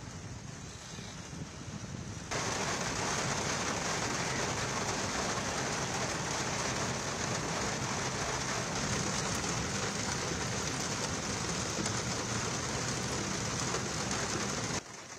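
Steady hiss of heavy rain falling on a wet road. It jumps abruptly louder about two seconds in and drops back just before the end.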